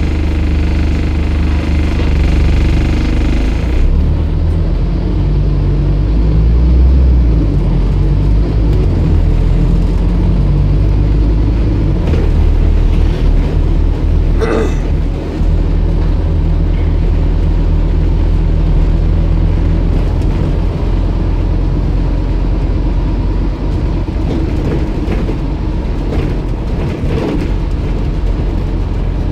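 Scania N230UD double-decker bus's five-cylinder diesel engine and drivetrain heard from inside on the upper deck as the bus drives, a steady low drone whose note rises and falls with the throttle. A higher whine cuts off about four seconds in, and a single knock sounds about halfway through.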